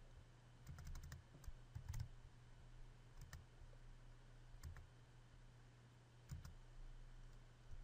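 Faint, scattered clicks of a computer keyboard and mouse, a few keystrokes at irregular intervals, over a low steady hum.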